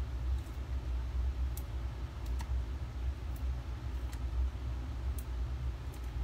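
Light, scattered clicks and ticks of fingers handling a cardstock panel and foam adhesive dimensionals, over a steady low hum.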